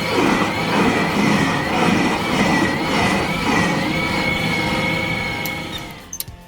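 Tractor-driven stump crusher running under load: a steady mechanical roar with a high whine that wavers slightly in pitch. The noise fades out near the end, and a few sharp clicks follow.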